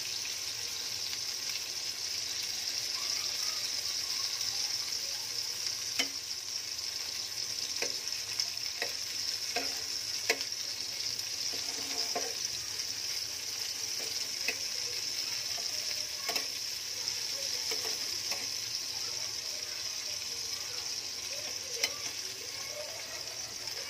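Masala-stuffed small brinjals sizzling steadily in hot oil in a frying pan, with a steel spoon clinking against the pan now and then as they are turned.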